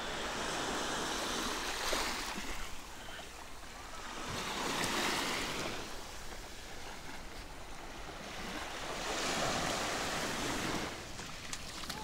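Small sea waves lapping and washing onto a sandy, pebbly shore, swelling and fading about every four seconds.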